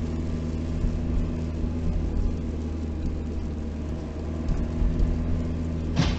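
Steady engine and tyre drone heard inside a moving car's cabin, with a few steady low hum tones. Near the end a sudden, louder burst of noise starts.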